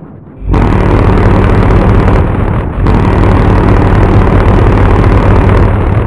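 Loud, low train horn sounding in two long blasts. The first starts suddenly about half a second in, there is a brief break just before three seconds, and the second holds steady to the end.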